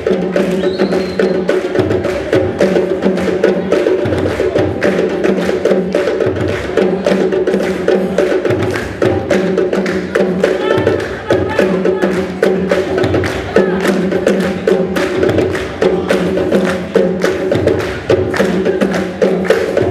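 Music with fast, dense percussion clicking over sustained steady low tones.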